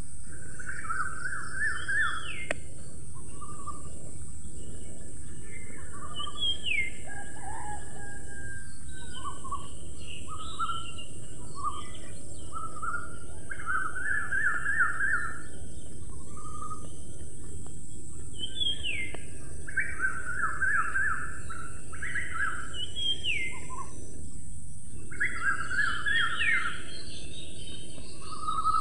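A songbird sings a repeated phrase every few seconds: a quick run of notes, then a short rising whistle. Under it run a steady hiss and a constant high-pitched whine.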